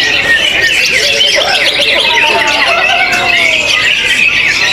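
Many caged songbirds singing at once at a songbird contest: a dense, loud, continuous chorus of overlapping chirps and rapid whistled trills.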